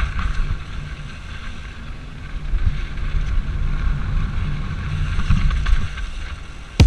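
Santa Cruz Nomad mountain bike rolling downhill: wind buffeting the microphone over a steady, uneven rumble from the tyres and trail. Loud music cuts in suddenly at the very end.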